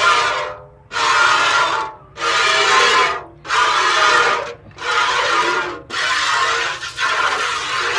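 Cow being milked by hand: milk squirting into a pail in a steady rhythm of hissing spurts, about one a second, seven in all.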